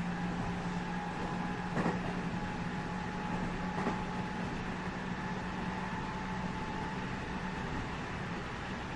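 Running noise inside a JR West 207 series 1000 electric multiple-unit motor car, a steady hum over wheel-on-rail noise at an even speed. Two brief clacks come about two seconds apart near the start.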